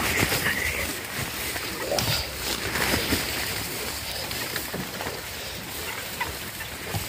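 Tall grass and stinging nettles rustling and swishing as someone forces a way through them, with irregular brushing and crackling strokes.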